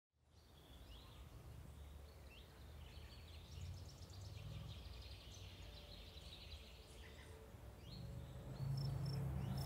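Faint outdoor backyard ambience fading in: birds chirping in short rising calls over a low steady rumble. Near the end a regular high-pitched chirping starts, about three pulses a second.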